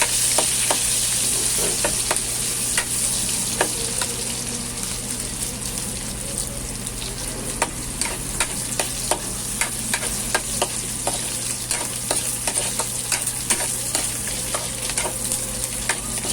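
Garlic and aromatics sautéing in hot cooking oil in a pan: a steady sizzle with frequent sharp pops and clicks of spattering oil and the stirring utensil.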